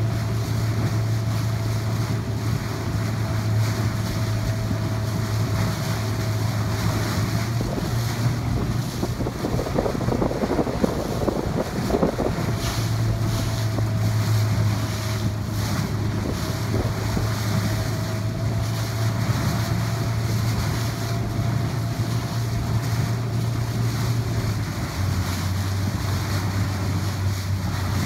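Wind buffeting the microphone and water rushing past a boat under way, over the steady hum of a motor. A gust or splash thickens the noise for a few seconds near the middle, and the hum drops slightly in pitch near the end.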